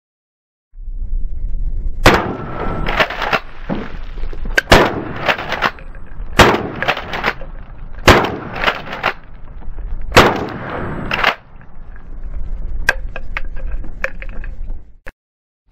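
A 12-gauge pump-action shotgun, a New Haven 600 AT (Mossberg 500 type) with a cut-down barrel, fired five times about every two seconds, with the clack of the pump being racked between shots to eject the spent shells. A few lighter clicks of the action follow the last shot.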